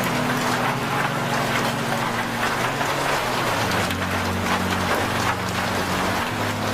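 Steady rain-like hiss under a few low sustained tones, which shift to new pitches twice.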